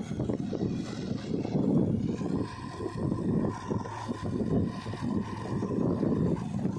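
Diesel engines of a JCB 3DX backhoe loader and a Powertrac 434 DS tractor running together, an uneven rumble that rises and falls.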